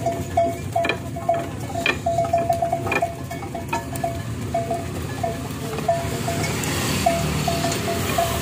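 Bells on a pair of draught oxen pulling a cart, clinking at one pitch several times a second in an uneven rhythm with the oxen's walk, with an occasional sharp knock. A motorcycle rushes past near the end.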